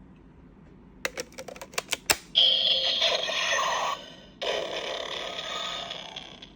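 DX Kamen Rider Amazons toy transformation belt being worked: a quick run of plastic clicks from its handle and parts, then two bursts of its electronic sound effects from the toy's small speaker, a short gap between them.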